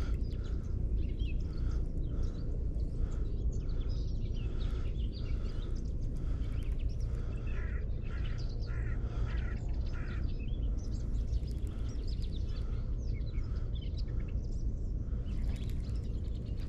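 Small birds chirping and singing, many short calls, over a steady low rumble.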